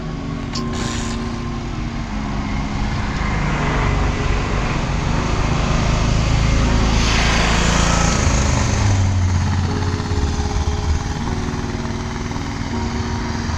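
Background music with a low line of held notes that step from pitch to pitch, under a steady rushing noise that swells to its loudest about halfway through.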